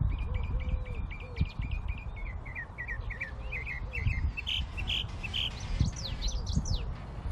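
Small songbird chirping in a quick run of notes that speed up, then a few higher sweeping notes near the end, over a steady low rumble.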